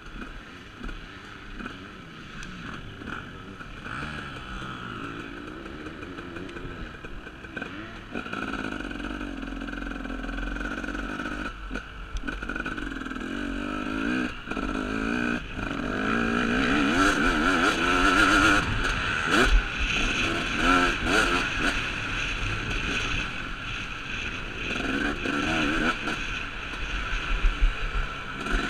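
KTM 250 SX two-stroke motocross bike engine revving up and down as it is ridden over a dirt track, heard from the rider's helmet camera. The throttle is opened and shut again and again, and the engine gets louder and higher from about halfway through.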